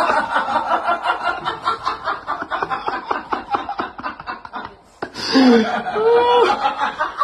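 A person laughing hard in rapid, breathy pulses for about five seconds, then, after a brief pause, a voice with rising and falling pitch near the end.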